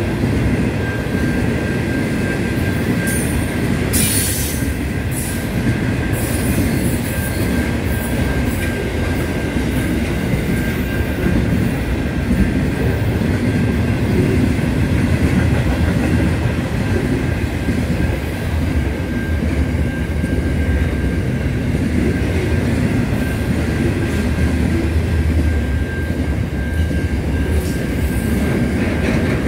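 Long intermodal freight train of container wagons passing close by at speed: a steady heavy rumble and clatter of wheels on the rails, with a thin wheel squeal coming and going.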